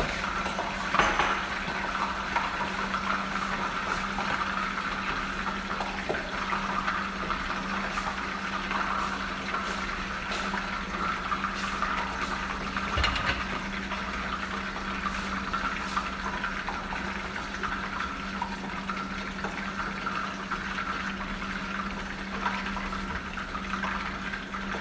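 Steady hiss of pans cooking on a gas stove, a frying pan under its lid and a steel pot, with a low steady hum underneath and a few light knocks.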